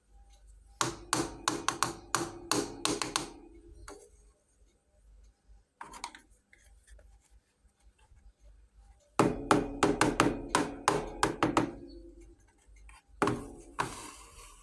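Small miniature kitchen toy pieces being handled, in two runs of quick light taps and clicks, each tap leaving a short ring. A brief rustle comes near the end.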